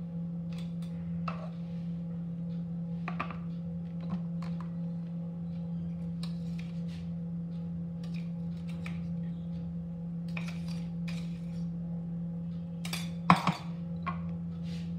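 Steel spoon scraping and tapping against steel kitchen containers in scattered clicks as ground biscuit powder is spooned out, with a sharper metal clank near the end. A steady low hum runs underneath.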